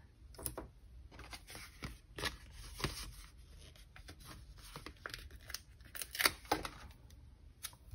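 Paper stickers and sticker sheets being handled and pressed onto a planner page: light, irregular clicks and crinkles, a little louder about three seconds in and again around six seconds.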